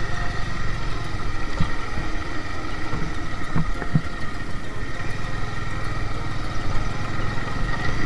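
Motorcycle engine running steadily while being ridden along a rough, muddy dirt track, heard from the rider's seat. A few brief low knocks come through between about one and a half and four seconds in.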